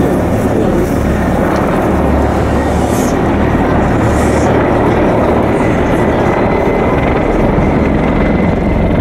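Two Mil Mi-35 attack helicopters flying past, their rotors and twin turboshaft engines making a steady, loud noise.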